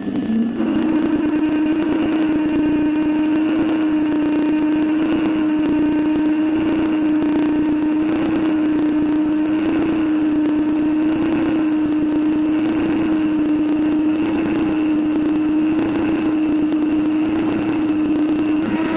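Metal lathe turning a large metal workpiece on a live centre while the tool takes a cut. A steady hum with a slight waver in pitch sets in about half a second in and holds, over the running machine's noise.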